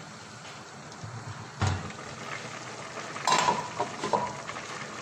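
Aluminium stockpot lid knocked about a second and a half in, then lifted off and set down on the stove with a clatter and a short metallic ring just past three seconds. Under it, a steady bubbling hiss of soup at the boil.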